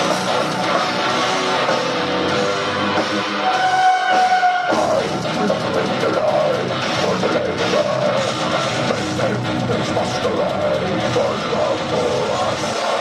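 Symphonic death metal band playing live in a small club: distorted guitars, bass and drums, heard from within the crowd. About four seconds in, the low end drops out for around a second under one held note, then the whole band comes back in.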